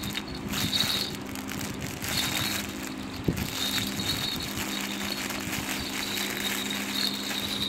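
Clear plastic packaging rustling and crinkling as a bagged plastic baby rattle is handled and shaken, with faint rattling from the beads inside its hollow balls. A steady low hum runs underneath.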